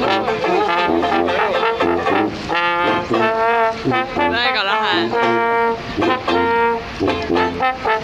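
Street band of trombone, banjo and tuba playing a tune. The trombone takes held notes, with a wavering slide about halfway, over a pulsing tuba bass and banjo strumming.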